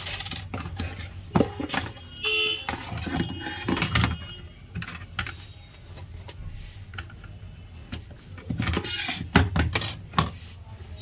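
Clicks, knocks and rattles of a laptop motherboard and small parts being handled, turned over and set down on a workbench. A brief horn honk sounds about two seconds in.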